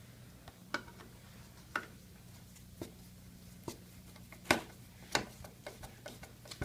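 Screws being fitted into the display's panel with a screwdriver: scattered light clicks and taps, a dozen or so, the sharpest a little past the middle, over a steady low hum.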